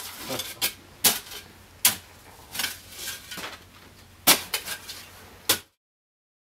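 Yard work amid rubble: irregular sharp clinks and knocks of hard objects striking, about six loud ones with smaller clinks between, stopping abruptly near the end.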